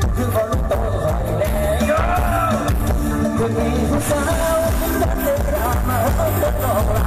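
Loud music with heavy bass and a wavering sung melody, played through the speaker system of a Thai rot hae parade sound truck and recorded live on a phone.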